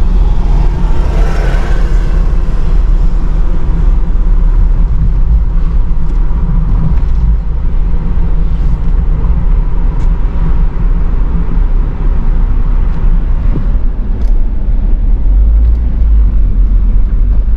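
Vehicle driving on the road: a steady low rumble of engine and road noise, swelling briefly about a second in.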